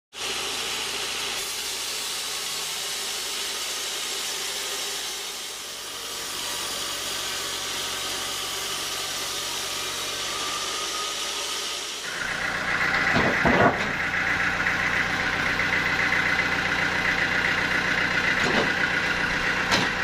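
Band sawmill cutting through a teak log, a steady even hiss of the band saw blade in the wood. About twelve seconds in it changes abruptly to a louder engine running with a steady high whine, with a couple of sharp knocks.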